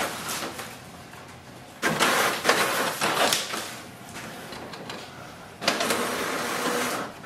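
Epson WorkForce Pro WF-3825 inkjet printer printing: paper-feed and print-head mechanism running in two loud spells, about two seconds in and again from just before six seconds. The page is drawn back in to print its second side.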